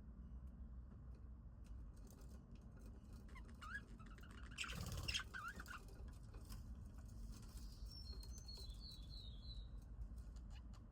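Budgerigars chirping faintly over a steady low hum. There are a few short gliding chirps around the middle, with a brief louder burst about five seconds in, and a quick run of high chirps falling in pitch about eight to nine seconds in.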